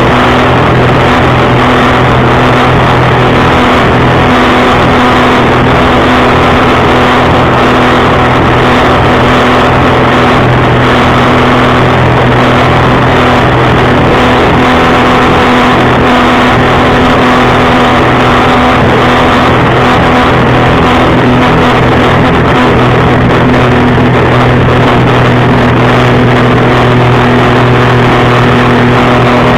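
Jet ski engine running steadily at speed under load while towing a tube, a loud, even engine note over a constant rush of noise.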